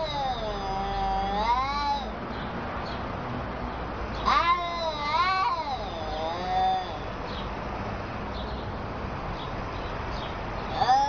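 Cats caterwauling in a face-off: long, wavering yowls that rise and fall in pitch, three in the first seven seconds, then a pause of a few seconds before another starts at the very end. This is the yowling of a territorial standoff between two cats.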